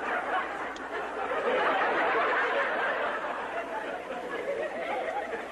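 Crowd babble: many voices talking at once, with no single voice standing out.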